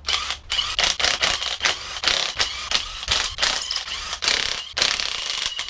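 Impact wrench hammering in a string of short bursts, several a second, with longer runs near the end, spinning bolts out of the rotary engine.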